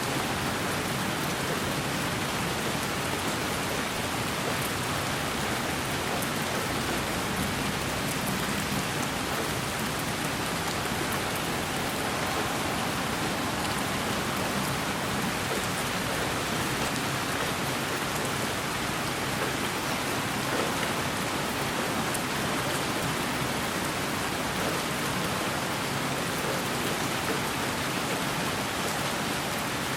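Steady rain falling on a surface, an even hiss with faint drop ticks.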